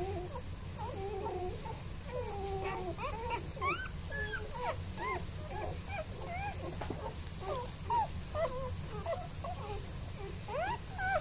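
A litter of newborn puppies whimpering and squeaking as a hand strokes them: many short, overlapping high squeals that slide up and down in pitch.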